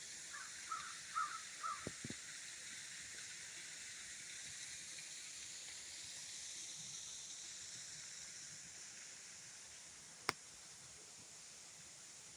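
A bird gives four or five short calls in quick succession in the first two seconds, over a steady high hiss. A single sharp click comes near the end.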